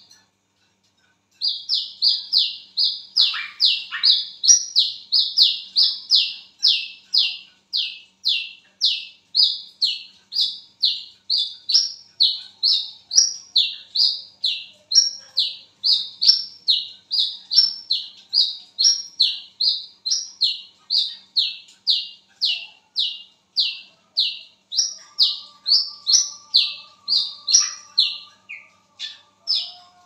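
Brown-throated sunbird (wiceh, kolibri kelapa) calling: a long, steady run of short, high notes, each falling in pitch, about two a second, after a brief break near the start.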